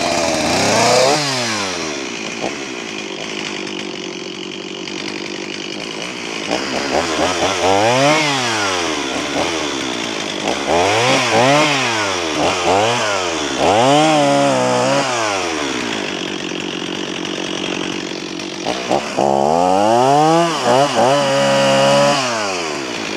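Two-stroke chainsaw revved up and down again and again, falling back between revs to a low, sagging idle. The idle speed is set a little too low for the cold.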